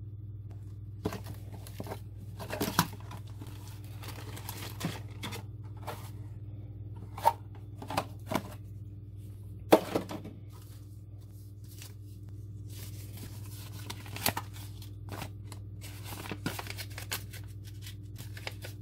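Plastic product packaging being opened and handled: crinkling and tearing, with scattered sharp clicks and snaps, over a steady low hum.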